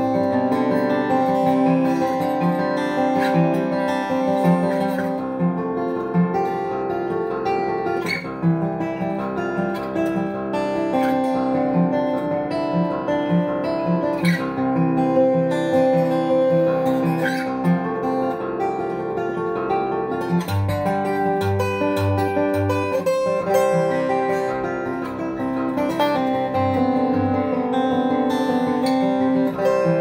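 1994 Taylor 420-R steel-string acoustic guitar played solo: an instrumental piece of plucked notes ringing over a repeating bass line, with a few deeper bass notes about two-thirds of the way through.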